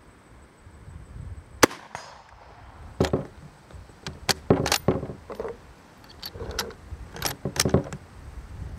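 A single shot from a Type I bolt-action rifle chambered in 6.5x50 Arisaka, a little under two seconds in, with a short ringing tail. After it come several sharp metallic clacks as the bolt is opened, drawn back and closed to eject the case and chamber the next round.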